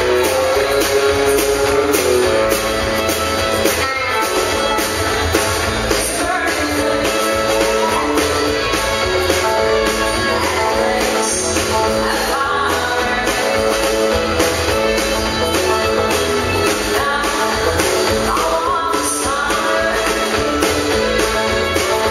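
Live country band playing with a steady drum beat, electric guitar and fiddle, amplified through a PA; a woman's lead vocal joins partway in.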